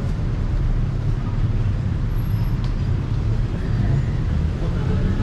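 Road traffic: a steady low rumble of motor vehicles on a busy city street.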